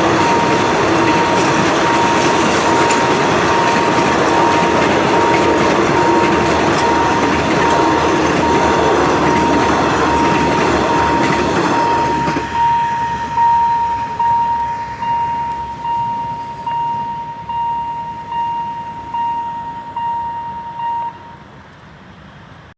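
Passenger train running on the rails, loud for about twelve seconds and then quieter, with a steady high ringing tone throughout. In the second half the tone turns into a repeating ring a little more than once a second.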